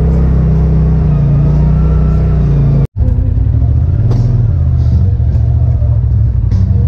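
Polaris RZR Pro XP side-by-side's turbocharged twin-cylinder engine running under way, heard from inside the cab as a steady low drone. The drone breaks off for a moment about three seconds in, where one clip cuts to the next, then carries on.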